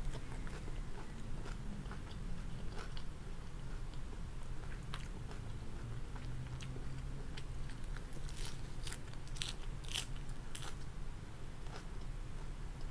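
Someone biting into and chewing a lettuce-leaf wrap close to the microphone: crisp crunches of fresh lettuce, thickest about eight to eleven seconds in, over a steady low hum.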